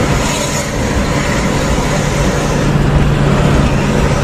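Steady engine drone and tyre-and-wind road noise inside a car travelling at highway speed, growing slightly louder a little past halfway.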